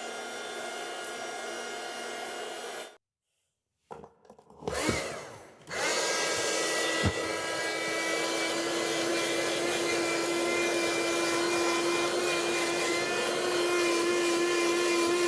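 Small handheld car vacuum cleaner, its motor converted from 4.8 V batteries to 12 V DC, running with a steady whine. It drops out for about a second, starts up again about four seconds in and then runs steady and louder, with a single sharp click near seven seconds.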